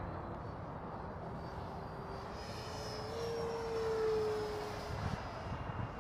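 Freewing F-22 model jet's 90mm electric ducted fan whining as it makes a low pass. It grows louder and its pitch rises a little, peaks about four seconds in, then eases off as the jet moves away.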